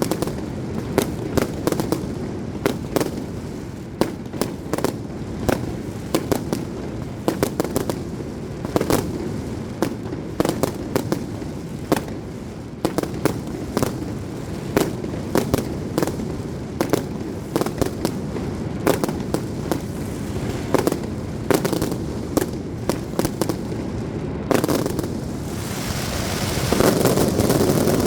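Aerial fireworks display: a rapid, irregular string of sharp bangs and pops from shells bursting overhead, over a steady low rumble. Near the end the bangs stop and a louder steady rushing noise takes over.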